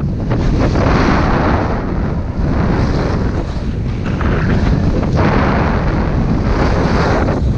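Wind buffeting the microphone of a camera carried by a skier moving downhill, a steady low rumble, with the hiss of skis on groomed snow swelling roughly every two seconds as he turns.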